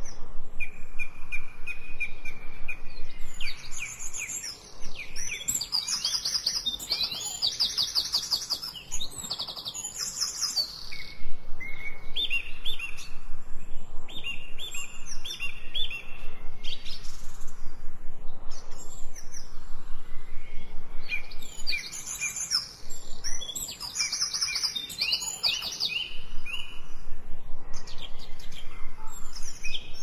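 Songbirds chirping and singing: quick high trills and runs of short repeated whistled notes, several birds at once. The recording is mixed as 8D audio, so the birds move around the listener's head on headphones.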